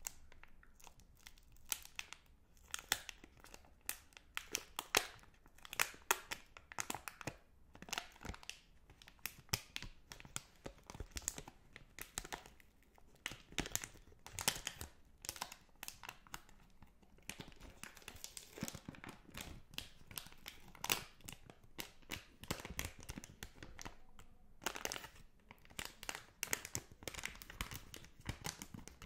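Foil-lined plastic wrapper of a Magnum ice cream bar being crinkled and folded in the fingers: dense, irregular crackling, with a couple of short pauses.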